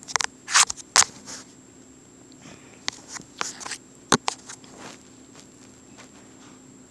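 Handling noise from a handheld recording device being moved and gripped: a quick run of rustles and clicks, a few more taps a few seconds in with one sharp click, then settling to a faint steady hum.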